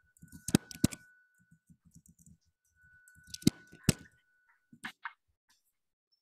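Sharp clicks in two pairs, each pair about a third of a second apart, heard over a video-call microphone. A faint steady high tone runs underneath.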